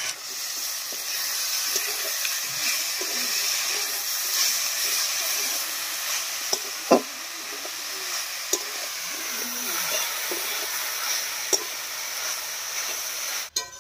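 Shredded cabbage, carrot and potato sizzling in oil in a kadai (wok) while a metal spatula stirs and scrapes through them, with a steady hiss and a few sharp taps of the spatula against the pan. This is the vegetables being sautéed down (koshano) uncovered until done.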